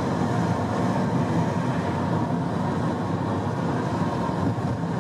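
Steady road and engine noise of a car driving along a street.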